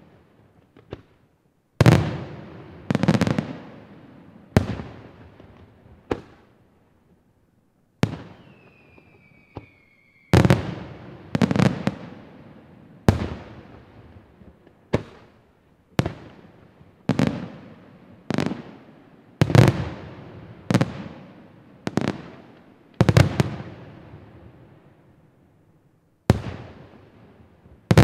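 Aerial firework shells bursting in a rapid series, about one bang a second, each trailing off in a rolling echo. There is a short pause about six seconds in, and a brief high whistle about nine seconds in.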